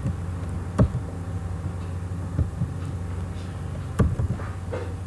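Computer keyboard keys clicking now and then over a steady low hum, the two sharpest clicks about a second in and about four seconds in.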